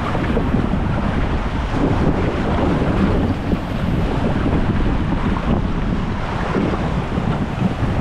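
Water rushing and splashing in a steady noise as a round inflatable raft slides down a fiberglass raft slide, with wind buffeting the microphone.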